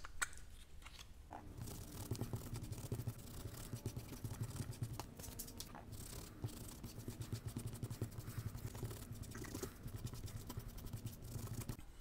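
A cloth rag rubbed briskly back and forth over the leather of a baseball glove's web, working in leather lotion: quick, steady scrubbing that starts about a second in and stops just before the end.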